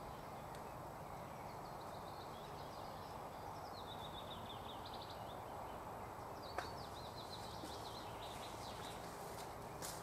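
Nightingale singing: two high phrases of fast repeated notes, the second starting after a single sharp click, over a steady low hiss.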